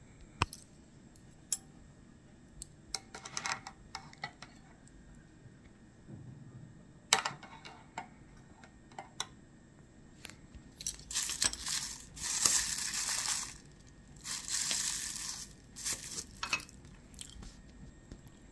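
Metal chopsticks clicking and clinking against an open tuna can, then two spells of packaging crinkling and tearing, about eleven and fourteen seconds in, which are the loudest sounds.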